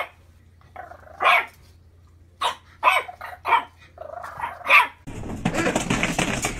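A small puppy barking: about six short barks at uneven intervals. About five seconds in, the barking stops and a steady noisy background takes over.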